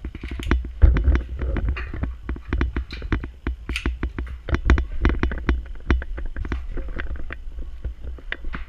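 Airsoft gunfire: many sharp cracks of shots and BB hits in quick, irregular succession, over a steady low rumble.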